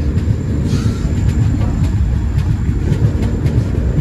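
Express passenger train running at speed, recorded from the moving train itself: a steady loud rumble of the wheels on the track, with a few faint clicks.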